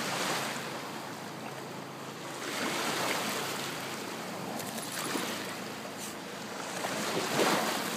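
Small waves lapping in shallow lake water, the wash rising and falling every few seconds.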